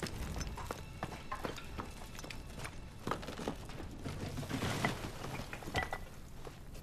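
Footsteps on loose brick rubble, with irregular knocks and clatters of bricks and debris shifting underfoot, thickest about two-thirds of the way through.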